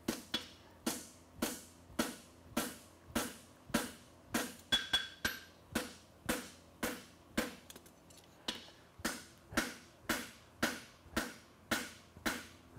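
Hand hammer striking a red-hot steel horseshoe on an anvil, forging down the heel of the branch at a steady pace of about two blows a second, with a short pause a little past the middle.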